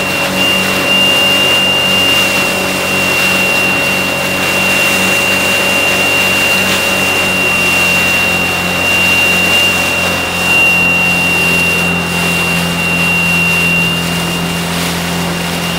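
Jet ski engine running steadily at low power, its jet pump clogged by a jellyfish, so the craft limps along; the engine note drops slightly about eleven seconds in. A steady high-pitched tone and a constant hiss run over it.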